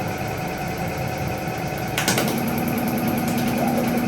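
Diesel injector test bench running with a steady mechanical buzz. About two seconds in there is a sharp click, and a steady hum starts as the injector spray test begins.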